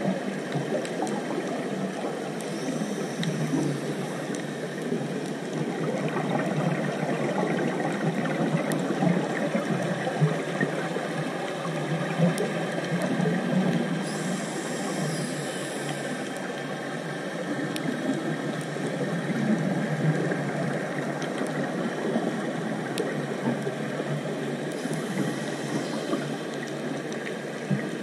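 Underwater ambient noise picked up by a GoPro camera in its waterproof housing: a steady muffled rush with faint scattered clicks. Three brief higher hissing spells stand out, near the start, midway and near the end.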